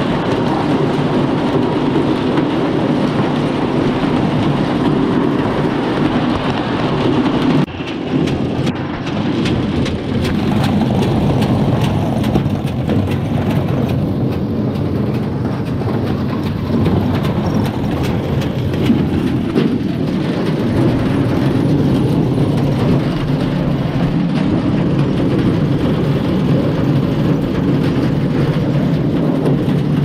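Ear corn elevator running with a loud, steady mechanical clatter as ears of corn ride up its chain into a corn crib.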